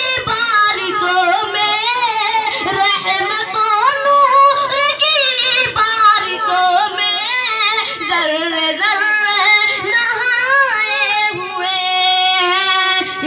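A boy singing a naat, an Urdu devotional song, into a microphone with no instruments. His high voice moves in wavering, ornamented melodic lines and settles into a long held note near the end.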